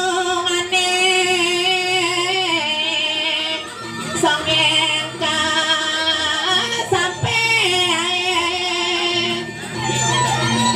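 Music: a woman singing long, wavering melodic phrases with vibrato over traditional instrumental accompaniment.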